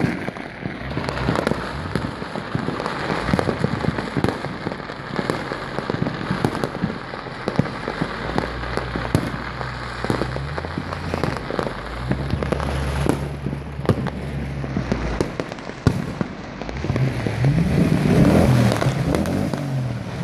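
Distant New Year's fireworks going off in a dense, irregular stream of bangs and crackles. Near the end a motor vehicle's engine revs up and down, louder than the fireworks.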